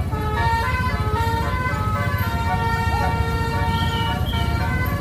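Telolet bus horn, a set of musical air horns playing a tune of held notes that change pitch in steps, with the bus's engine rumbling underneath.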